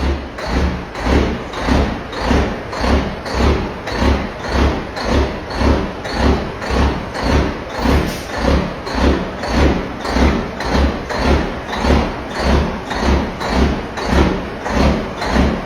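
Music with a heavy, steady thumping beat, about two beats a second.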